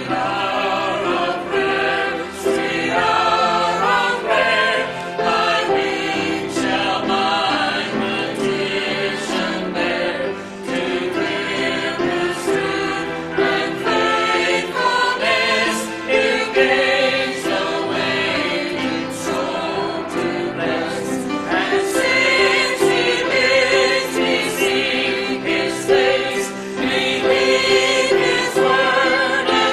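Mixed choir of men's and women's voices singing a gospel hymn together.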